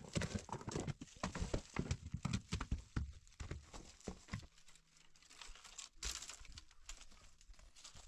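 Irregular clattering and crunching of feet and stones on rocky, gravelly ground, dense for about the first four seconds and then fainter and more scattered.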